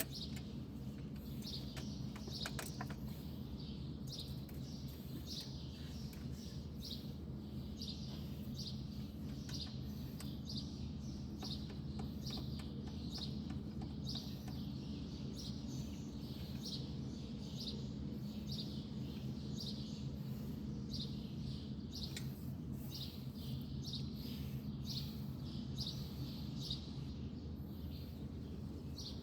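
A bird chirping repeatedly, short high calls about once a second, over a steady low hum.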